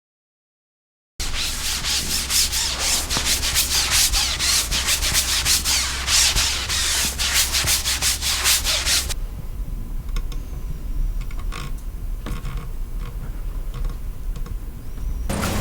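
Quick, repeated rubbing strokes of hand craftwork on a surface, starting suddenly about a second in, then turning much quieter about nine seconds in, with a few light ticks.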